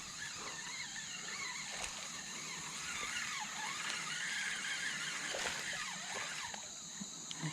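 Steady high-pitched insect chorus, crickets, with faint scattered chirps and squeaks over it.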